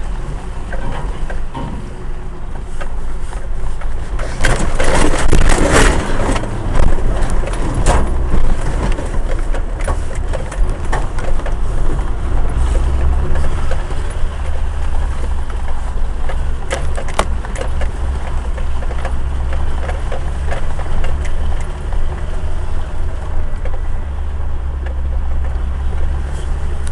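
Suzuki jeep's engine running with a steady low drone as the vehicle crawls along a rough off-road track, heard from inside the cab, with rattles and scattered knocks from the body. A louder stretch of crashing noise comes about four to eight seconds in.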